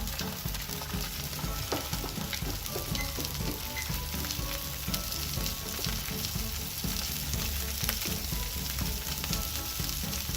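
Salmon fillet frying in hot cooking oil in a pan: a steady sizzle with fine crackling spatters.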